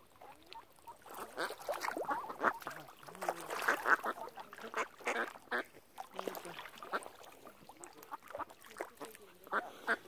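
Ducks quacking over and over in a noisy flurry, busiest from about one to four seconds in, with scattered calls after.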